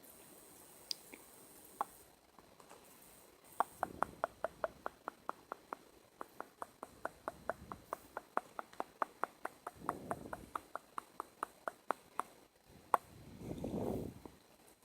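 Tongue clicking close to the microphone: a quick, even run of sharp clicks, about four or five a second for some eight seconds, like a clip-clop. A single louder click follows near the end, then a short rushing sound.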